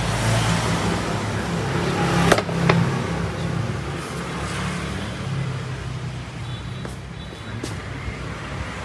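Green Việt QCG25 solar-powered standing fan running, a steady motor hum with the rush of air from its blades. Two sharp clicks come a little over two seconds in.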